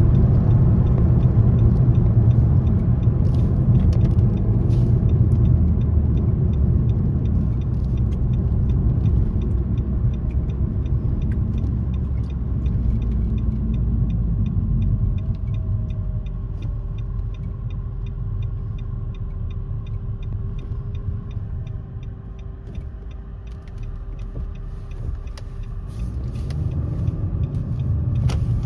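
Nissan Rogue Sport with the MR20DD engine being driven: a steady low rumble of engine and road noise that eases off over the first twenty seconds or so, then builds again near the end.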